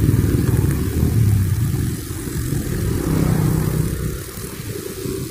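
Honda GX35 four-stroke string-line brush cutter running, mixed with the engines of motorcycles and cars passing close by. The loud, low rumble eases off somewhat in the second half.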